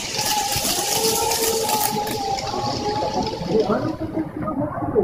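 Model train running on layout track: a steady rolling hiss with a whining tone from its motor, the hiss fading away about four seconds in as the train moves off.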